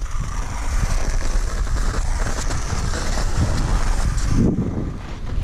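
Wind buffeting the camera microphone, over a steady hiss of skis sliding on snow.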